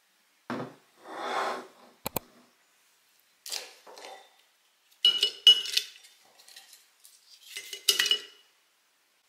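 Glass storage jar and its glass lid clinking while small paper sachets are dropped in and handled. There is a series of separate taps, light rustles and clinks, some with a short glassy ring, and the loudest come about five seconds in and near the end.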